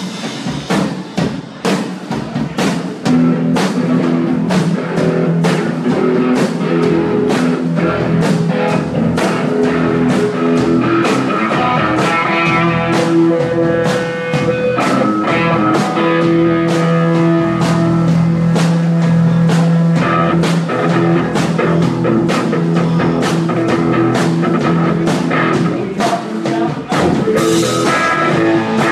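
Live rock band playing, with drums keeping a steady beat under guitar and long held notes from about three seconds in. No clear singing stands out.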